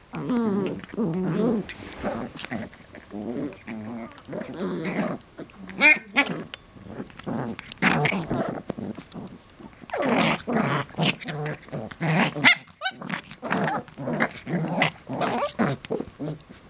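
West Highland White Terriers play-growling as they wrestle: a string of short, rough growls and snarls, with a brief higher yelp about six seconds in.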